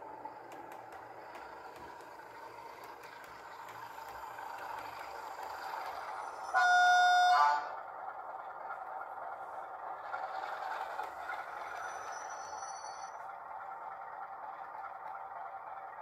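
Sound-decoder playback of a CFR 060 DA diesel locomotive's engine running steadily, from the small speaker of an MTB model locomotive, with one loud horn blast lasting about a second, about six and a half seconds in.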